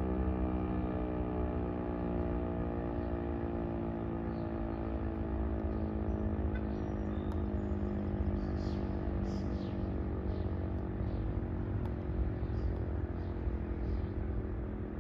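Federal Signal Eclipse 8 electronic outdoor warning siren sounding on test: a drone of several tones at once that slowly falls in pitch and fades. Birds chirp from about halfway in.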